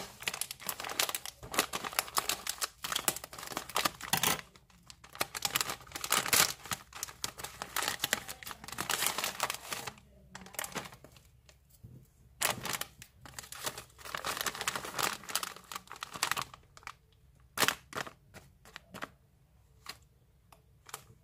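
A foil-lined plastic bag of Pufak corn puffs crinkling and rustling in the hands as it is opened and a puff is pulled out. The crinkling comes in runs, with a short lull about halfway and sparser rustles near the end.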